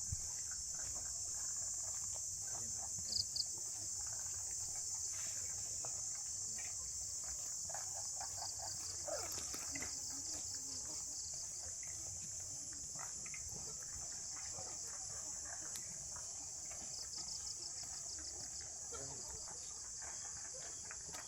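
Insect chorus of crickets or cicadas: a steady, high-pitched shrill that runs unbroken, with a few bursts of fast pulsing calls from another insect.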